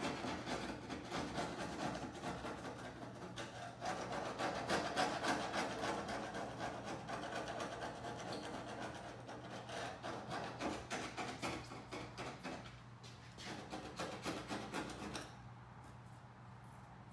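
A hand scraper rasps along the rusted steel glass channel of a Toyota Land Cruiser 80 series tailgate, scraping out flaking rust in quick repeated strokes. The scraping stops a couple of seconds before the end.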